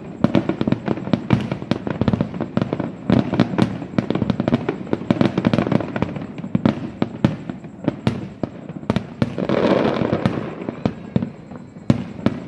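Many fireworks going off at once: a rapid, overlapping string of bangs and pops, with a hissing spell about ten seconds in.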